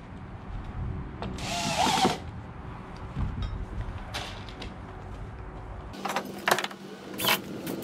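Cordless drill driving screws into a wooden shed door, in short runs. The motor pitch wavers through one run of under a second about a second and a half in, and several short bursts come near the end.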